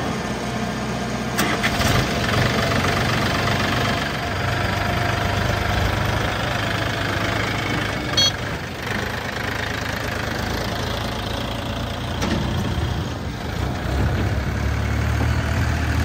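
Diesel tractor engine running close by, with a backhoe loader's diesel engine running behind it. The engine sound grows louder near the end as the tractor pulls away with the loaded soil trolley.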